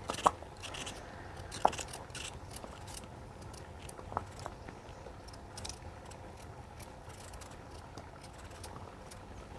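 Raw potatoes being peeled and cut by hand with knives: small crisp crunches and scattered clicks, a few sharper ones near the start and one midway, over a steady low background rumble.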